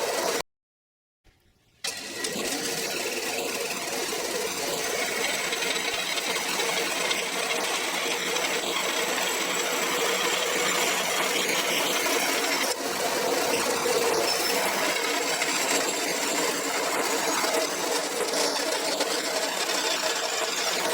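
A machine tool running steadily while it cuts aluminium plate, with a steady hum. The sound drops out briefly about half a second in, then resumes.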